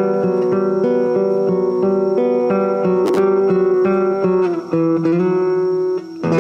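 Instrumental passage of the song led by guitar, with no singing. Sustained notes change every half second or so, and the sound drops out briefly twice near the end.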